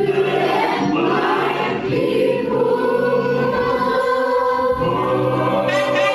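Choir singing a gospel-style song over music, in long held notes.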